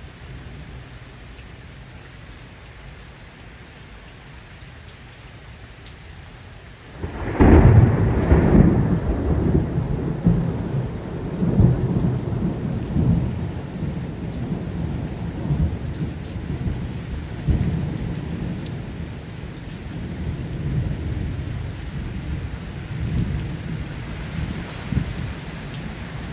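Steady rain, then about seven seconds in a sudden loud thunderclap that rolls on as a long, uneven low rumble of thunder over the rain.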